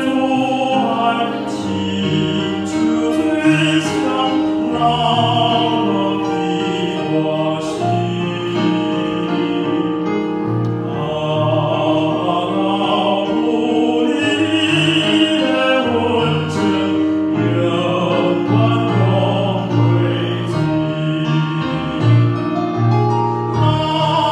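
Male tenor singing a Taiwanese-language hymn in classical style with vibrato, amplified through a handheld microphone, with piano accompaniment.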